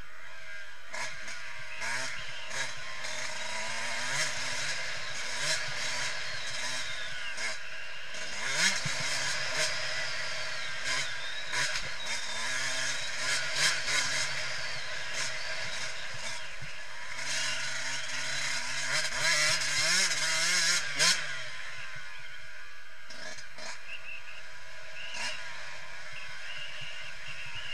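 Yamaha YZ125 single-cylinder two-stroke engine revving up and down through the gears while riding a motocross track, heard from a camera mounted on the bike. It is loudest, with sharp knocks, from about 8 to 21 seconds in, and runs at lower revs near the end.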